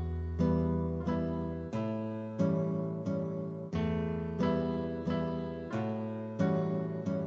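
Recorded acoustic guitar music: plucked chords in a slow, even pulse, each ringing and dying away as the next one sounds.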